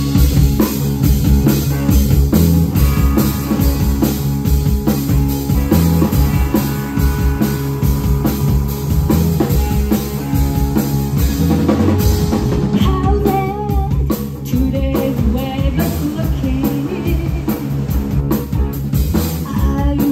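Rock band playing an original song: a drum kit keeping a steady beat under electric guitar and bass.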